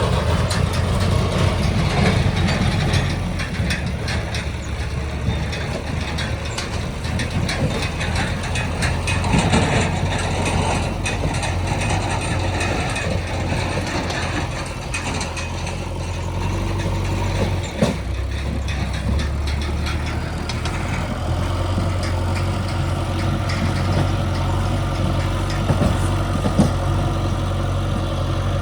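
Heavy diesel machinery engines running steadily under work, with scattered clanks and a few sharp knocks from the machinery.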